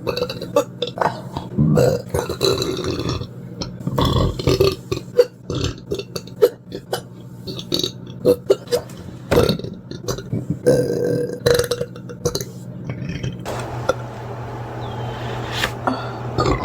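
A person burping over and over: a rapid string of short burps with a few longer, drawn-out ones, over a steady low hum.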